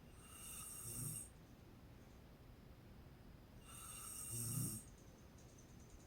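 Woman snoring in her sleep: two snores about three and a half seconds apart, each a breathy hiss that swells in loudness and ends in a low snore before cutting off abruptly.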